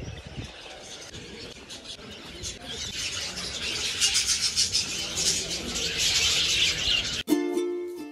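A flock of small cage birds in an aviary chattering and chirping together, a dense high twittering that swells over the first few seconds. About seven seconds in it cuts off abruptly and plucked ukulele music starts.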